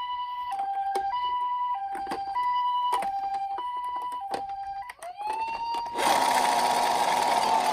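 Toy ambulance's electronic two-tone siren, a lower and a higher note alternating about every half second, with small clicks. About five seconds in it changes to a siren wail that rises and then holds, joined by a loud hiss from about six seconds.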